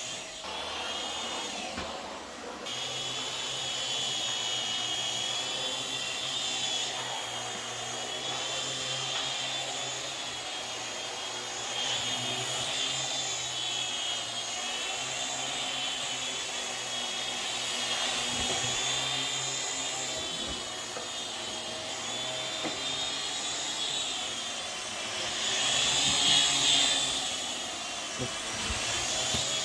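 Small drone's propellers whining, their pitch wavering up and down as the motor speeds change. It grows louder for a moment near the end.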